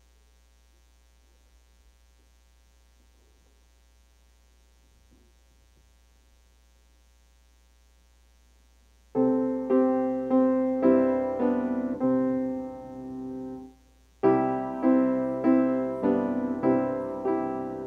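A faint hum, then about nine seconds in a piano starts playing chords, about two a second, each one dying away. The playing breaks off briefly about five seconds later, then starts again.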